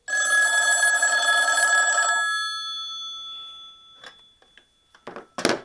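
1980s rotary telephone's mechanical bells ringing loud with a fast trembling clang for about two seconds, then dying away. Near the end come a few sharp knocks as the handset is lifted off the cradle.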